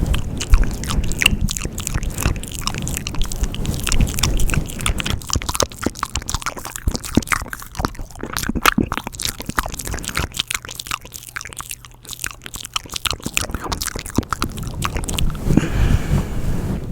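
Close-miked ASMR mouth sounds: many quick, wet clicks and smacks of the lips and tongue. A low rumble on the microphone runs under them in the first few seconds and again near the end.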